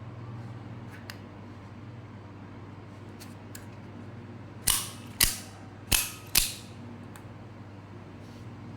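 Aluminum-handled automatic OTF utility knife snapping its blade out and back: four sharp clicks in two quick pairs past the middle, with a few faint clicks before them.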